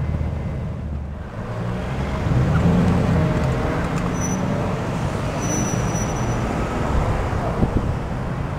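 Ferrari California's V8 exhaust as the car pulls out onto the road and drives off, mixed with the noise of other passing cars; it swells about two to three seconds in.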